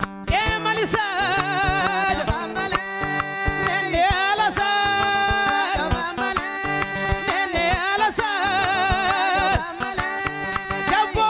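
A woman singing with a strong, wavering vibrato, coming in just after the start, over a live acoustic band of hand drum strikes and acoustic guitar.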